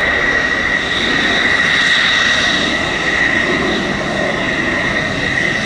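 Fighter jet engine running loud, a steady high-pitched whine over a dense rush of noise.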